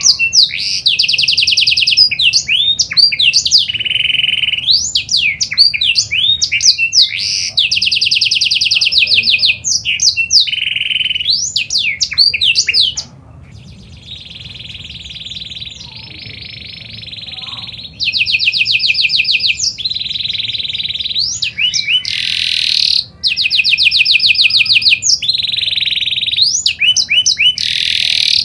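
Pied 'panda' domestic canary singing a long, continuous song: fast trills of rapidly repeated notes alternate with swooping whistles and held buzzy notes. The song drops much quieter from about 13 to 18 seconds in, then returns at full strength.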